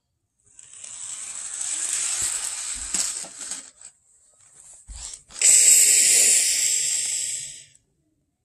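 Two long, steam-like hisses: the first starts about half a second in and fades out near four seconds; the second, louder one starts about a second later and cuts off sharply near the end.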